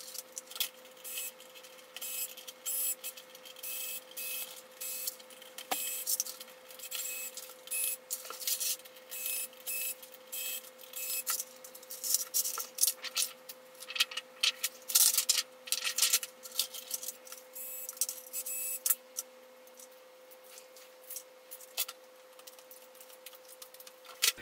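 Quick clicks, rattles and scrapes of metal and plastic TV panel parts being handled and taken apart, over a steady faint hum.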